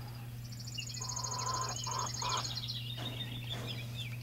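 Dorking chicks peeping in a brooder, with a fast high trill in the first half and short wavering peeps after it. A steady low hum runs underneath.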